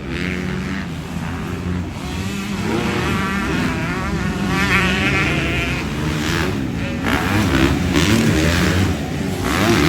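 Several motocross bike engines running together, their pitch rising and falling as they are revved.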